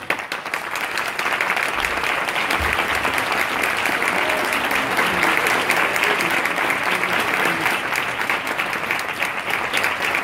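Audience applauding: a dense clatter of many hands clapping that starts abruptly, builds over the first couple of seconds, then holds steady.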